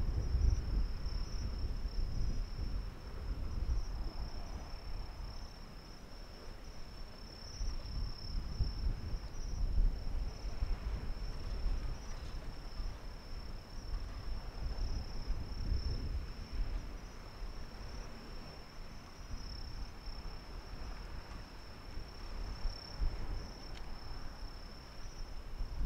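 Steady high-pitched insect chorus, a continuous shrill trill that never breaks, over an uneven low rumble that rises and falls.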